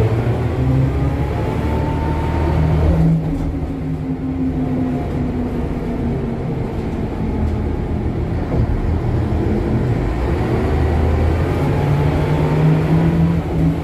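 Ikarus 260 city bus heard from inside the passenger cabin while under way: its diesel engine and ZF transmission run with a rising whine. About three seconds in, the whine and upper noise fall away suddenly. Near the end the whine climbs again as the bus pulls.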